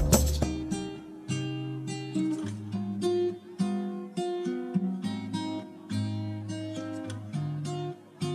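Background music: an acoustic guitar playing a melody of plucked notes.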